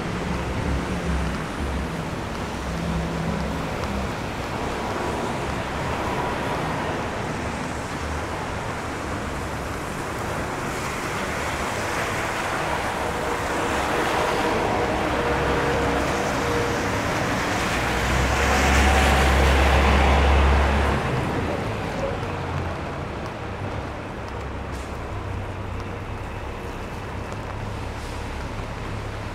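City street traffic in the rain: a steady wash of tyres hissing on wet pavement and engines running. It swells for a few seconds about two-thirds of the way through, with a deep rumble.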